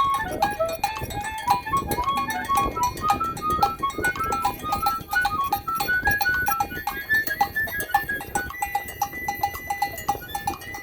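Drum circle music: hand drums and other percussion keep up a fast, dense beat, while an instrument plays a running melody of short, high notes that step up and down in pitch. A steady high tone joins near the end.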